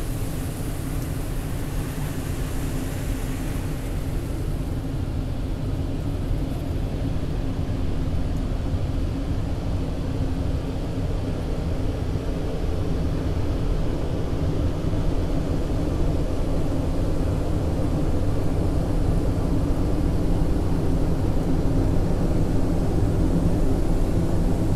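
Automatic car wash machine running, heard from inside the car: a steady low mechanical rumble with a droning hum. A hiss of spray and brushes on the glass fades out about four seconds in, and the rumble grows slowly louder toward the end.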